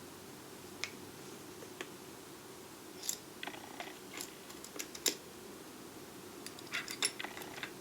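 Small metal tools and parts from a lathe toolbox being handled, giving scattered clicks and light clinks in a few short clusters, over a faint steady hum.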